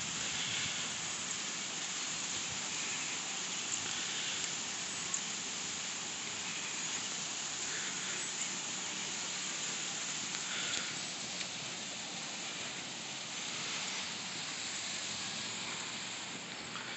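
Steady outdoor background hiss with a few faint, brief sounds now and then.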